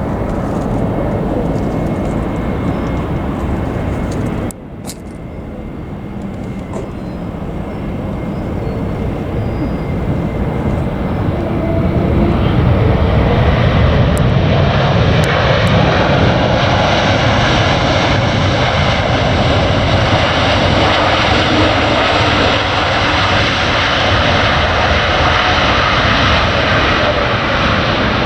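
Jet engines of a Wizz Air Airbus A321neo arriving. There is a sudden dip about four and a half seconds in, then the engine noise builds for several seconds and holds loud and steady.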